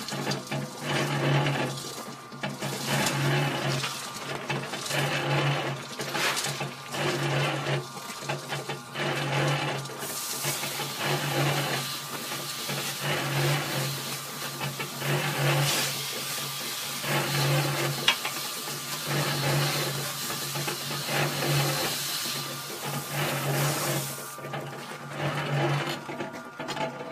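Small electric cement mixer running, its motor humming with a low pulse about once a second as the drum turns. A steady hiss joins through the middle stretch.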